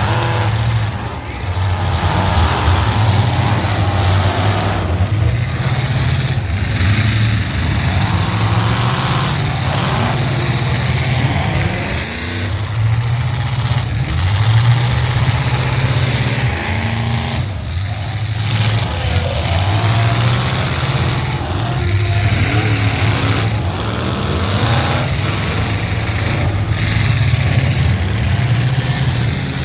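Demolition derby cars' engines running and revving, a low rumble that rises and falls every few seconds over a dense noisy background.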